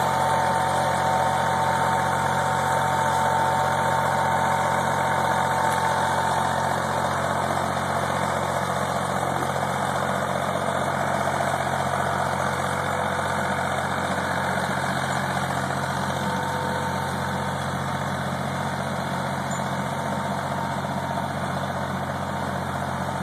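Ford 1910 compact tractor's three-cylinder diesel engine running steadily as it skids a load of logs behind it, slowly fading as it pulls away.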